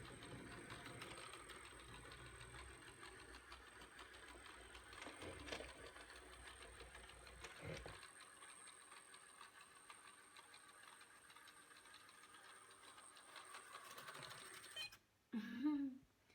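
ILIFE robot vacuum cleaner running: a faint, steady motor hum with a thin high whine. The low rumble drops away about halfway through, and the motor sound cuts off near the end.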